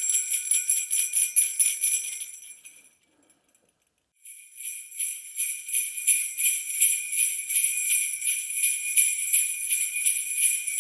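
Hand-held jingle bells shaken in a quick, even rhythm. The jingling fades out about three seconds in, then starts again after about a second's pause.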